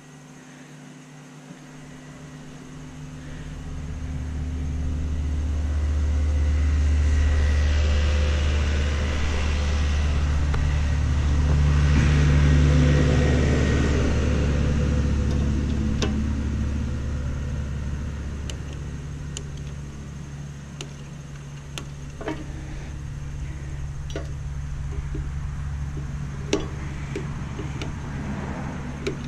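A low mechanical rumble that builds over the first few seconds, swells twice, then settles to a steadier lower level. A few sharp clicks sound in the second half.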